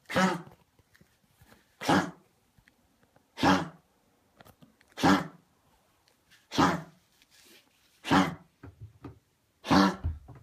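A dog coughing over and over: seven short, sharp coughs, one about every second and a half.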